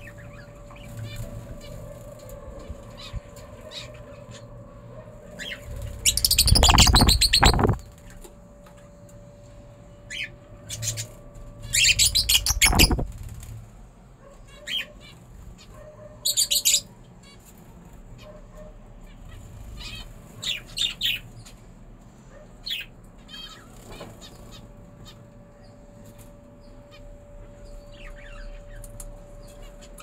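Aviary birds flapping their wings in several loud flurries, the longest lasting nearly two seconds, with scattered short chirps between.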